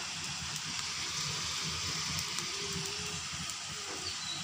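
Mutton sizzling steadily in a hot kadai with fried onions, with small ticks and crackles in the hiss.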